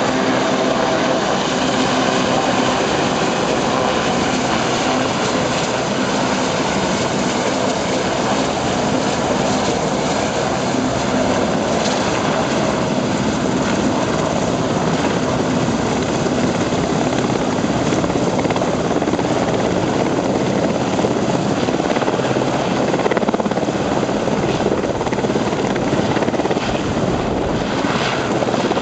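Royal Navy Westland Sea King search-and-rescue helicopter hovering close by: loud, steady rotor and twin-turboshaft engine noise with a steady whine running through it.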